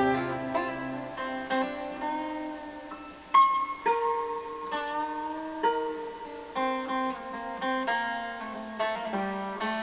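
Background music: a plucked string instrument, guitar-like, playing a slow melody of single notes that start sharply and ring out.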